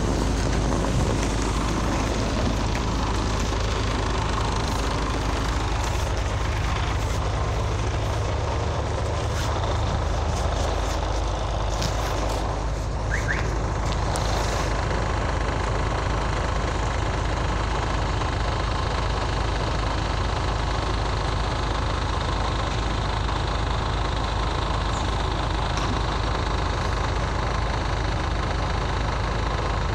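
A Scania OmniLink CL94UB city bus's diesel engine runs steadily at low revs, a constant even drone with traffic noise around it.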